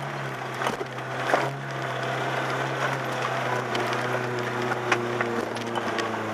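Off-road vehicle's engine running steadily at low revs, heard from inside the cab, with scattered knocks and cracks as it crawls over a rutted, leaf-covered dirt track. The engine note gains a higher tone about halfway through.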